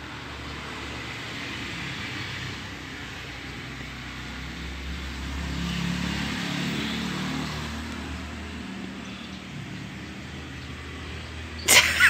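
Outdoor background noise: a steady low hum like distant road traffic, swelling for a few seconds around the middle as if a vehicle passes. A sudden loud burst of sharp sounds comes just before the end.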